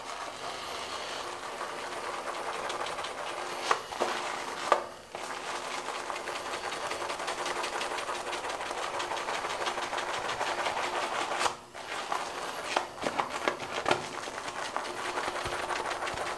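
Shaving brush whipping tallow shaving soap into lather in a small bowl: a rapid, even swishing of wet bristles against the bowl. There are a couple of brief knocks around four and five seconds in, a short pause about eleven seconds in, and then choppier strokes.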